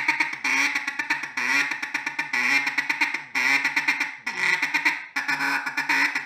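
Mallard duck call blown in a feed chuckle: fast, drawn-out runs of clucking ticks with half stutter quacks mixed in, imitating a hen chattering as she feeds. The runs come in groups with a short break about once a second.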